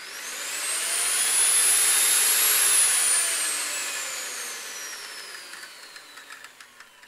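Electric metal grinder whining up to full speed, then falling steadily in pitch as it winds down after being switched off, with quick rattling clicks near the end as it slows.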